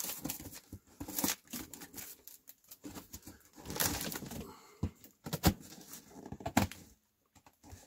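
A blade slitting the packing tape on a cardboard box, with scraping and scratching on the cardboard and several sharp taps and clicks. There is a longer scraping rush about four seconds in.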